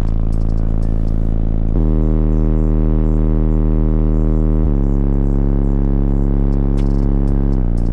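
Car audio system's subwoofers playing bass-heavy music: long held bass notes that shift pitch about every three seconds.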